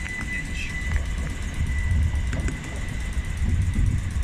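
A train rumbling low in the station, with a steady high-pitched whine that stops about two seconds in and a few short squeaks.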